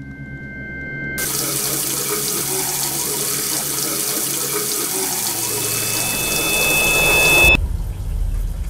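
Bathroom sink faucet running, a steady stream of water splashing into the basin. It starts about a second in and cuts off suddenly near the end, giving way to a low rumble.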